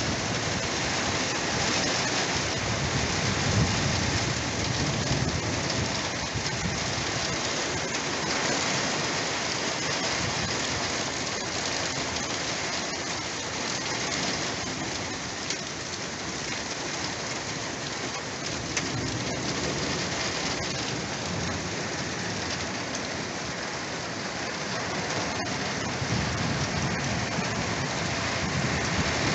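Heavy storm rain pouring steadily, with gusting wind in the pine trees; the low rush swells a few times.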